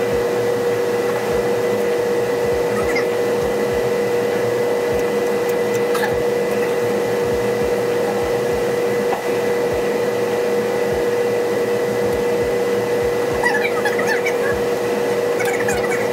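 A steady mechanical drone with a constant hum that never changes in level, from a running machine such as a shop fan, heater or extractor.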